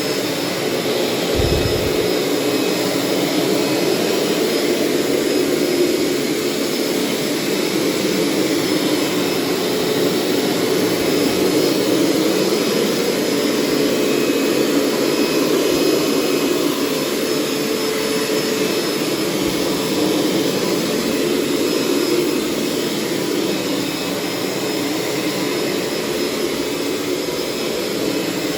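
Hoover Steamvac Plus upright carpet cleaner running steadily while shampooing, its suction motor giving a wind-tunnel whine over rushing air. There is a brief low bump about a second and a half in.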